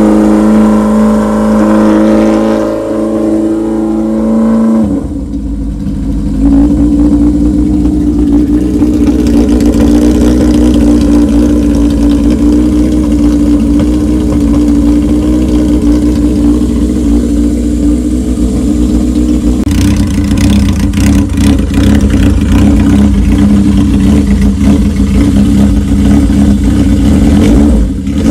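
Yamaha XS1100's air-cooled inline-four engine running at a steady idle through its chrome muffler, with a short dip about five seconds in.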